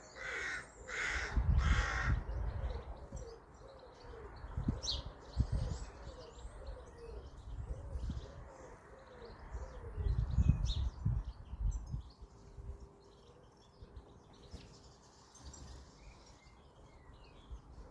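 A crow cawing three times in the first two seconds, with small birds chirping faintly and low rumbling gusts throughout.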